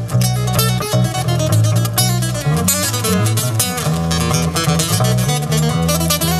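Live music: an acoustic guitar strummed over an electric bass playing a line of low notes.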